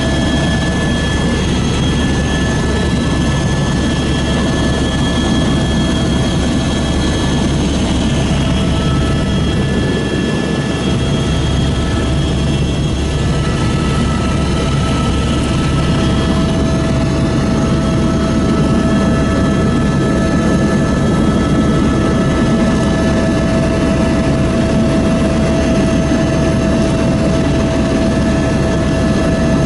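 Helicopter in flight, heard from inside the cabin: a loud, steady drone of engine and rotor, with several constant high tones over it.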